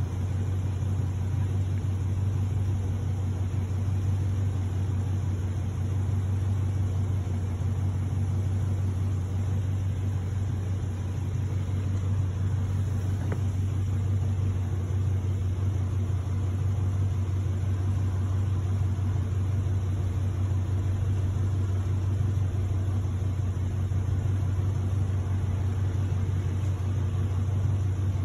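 Ram 1500 pickup's engine idling, a steady low hum.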